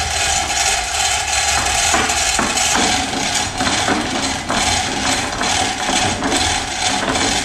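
Overhead hoist being hand-pulled to lift a fiberglass plug, with rapid clicking, over a steady noise with a hum.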